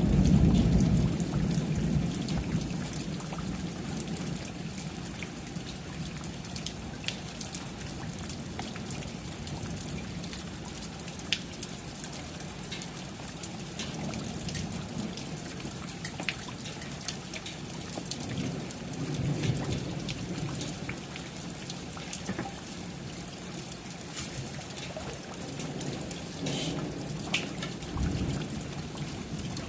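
Steady rain with many individual drops ticking sharply, as on a hard surface. A low thunder rumble dies away over the first few seconds, and fainter low rumbles swell again about two-thirds of the way in and near the end.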